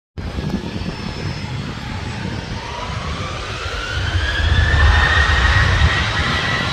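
Jet airliner's engines spooling up for takeoff: a whine that rises in pitch and then holds steady, over a low rumble that grows louder about four seconds in.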